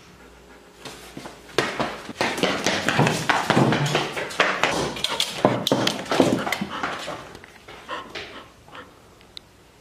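Golden retriever scrambling across a tile floor: a rapid, dense flurry of claw clicks and knocks that starts about a second and a half in, lasts about five seconds, then thins to a few scattered clicks.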